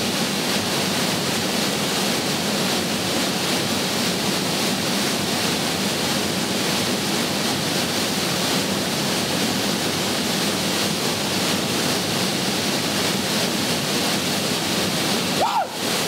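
River water pouring over a concrete weir: a steady, continuous rushing of falling water.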